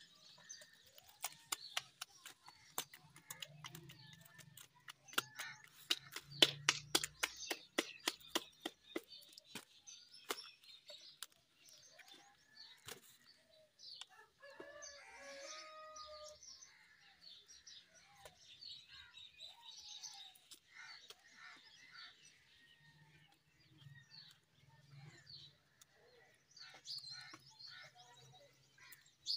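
A rooster crows once about midway, and small birds chirp throughout. In the first ten seconds there is a rapid run of sharp taps, the loudest sound.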